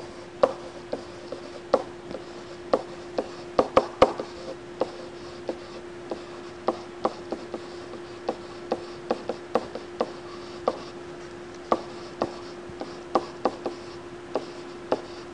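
Handwriting: a pen tapping and scratching on the writing surface in irregular short clicks, a few per second, over a steady hum.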